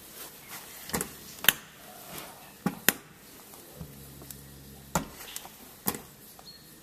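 Hand oil pump being worked to push oil into a hermetic compressor's sump: about six sharp, irregular clacks and knocks, the loudest about one and a half seconds in. A low steady hum comes in for about a second near four seconds in.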